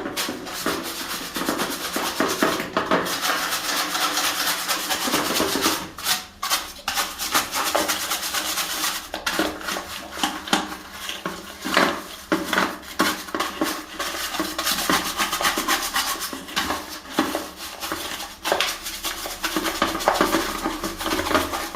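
A brush scrubbing hard inside a washing machine: continuous rapid rasping strokes, with small knocks and clatters against the machine's parts and a short pause about six seconds in.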